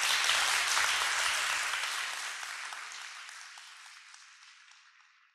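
Audience applauding at the end of a live recital, loudest at first and then gradually fading away until it cuts off near the end. Recorded on an old cassette tape.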